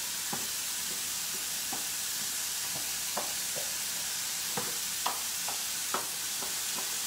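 Par-cooked risotto rice scraped with a spoon off a metal tray into a stainless steel saucepan: scattered light scrapes and taps, over a steady sizzle of mushrooms frying in a pan.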